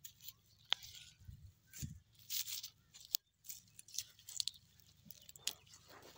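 A hand scrabbling in dry, crumbly soil and pulling carrots up through straw mulch: irregular crunching and rustling of earth, dry grass and carrot tops.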